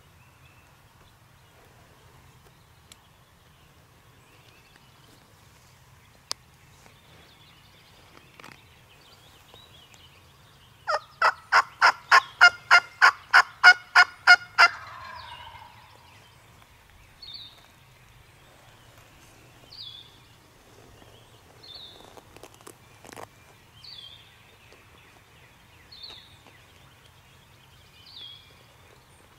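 Turkey calling: a loud run of about fifteen evenly spaced notes, about four a second, starting about eleven seconds in and lasting about four seconds. Afterwards a small bird gives a short rising high note every two seconds or so.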